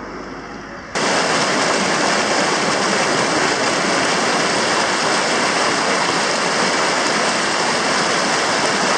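Loud, steady rush of whitewater churning right at the microphone, starting abruptly about a second in. Before it, a quieter steady vehicle rumble.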